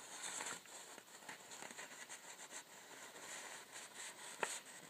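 Faint handling noise: light rustles and small clicks, with one sharper click about four and a half seconds in.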